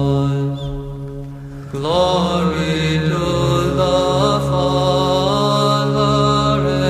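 Chanted soundtrack music: a melodic line sung over a steady held drone note, as in Byzantine chant. The melody fades out briefly and a new phrase begins about two seconds in, sliding up in pitch.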